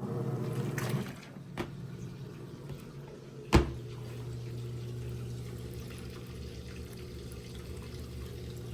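Compact top-load washing machine running, a steady motor hum with water swishing in the tub. A single sharp knock about three and a half seconds in, with a few lighter clicks before it.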